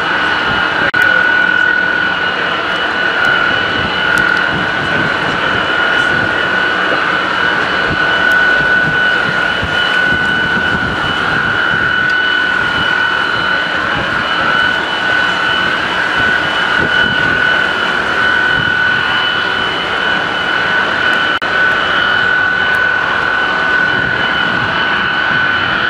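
Tu-134A-3's Soloviev D-30 low-bypass turbofan engines running at steady power: a constant high whine over a broad rumble, holding the same pitch throughout.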